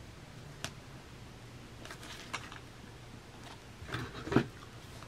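Desk handling sounds: a clear acrylic ruler and a paper file folder sliding and tapping on a cutting mat, with a sharp click early and soft rustling, then a flurry of handling ending in a louder knock about four seconds in as a hand grabs the long metal tool at the top of the mat.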